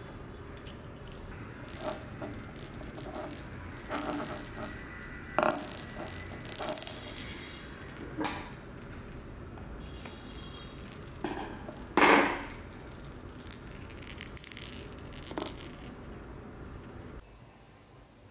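Hands handling a small plastic cat-toy ball and its clear plastic packaging on a table: scattered clicks, light rattles and plastic crinkles, with one louder sharp knock about twelve seconds in. The handling noise stops shortly before the end, leaving a quieter background.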